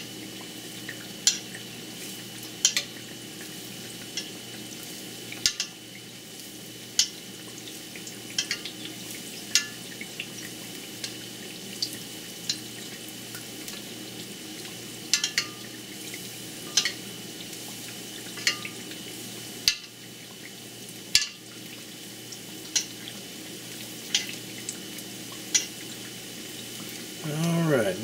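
Panko-crusted shrimp patty shallow-frying in hot oil in a stainless steel skillet while hot oil is spooned over its top: a steady sizzle with sharp crackling pops every second or two. A louder scraping sound comes near the end.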